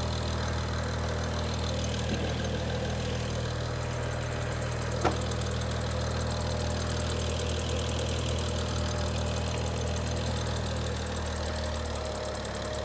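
BMW N55 turbocharged 3.0-litre inline-six idling steadily, with one short sharp click about five seconds in.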